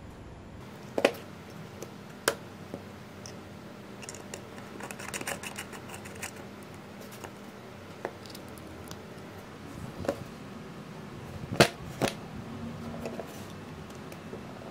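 Handling noise from a small electronic receiver and USB cables on a table: sharp clicks and taps as a connector is plugged in and the unit is set down, with a short clatter of small parts in the middle and two loud clicks a few seconds before the end.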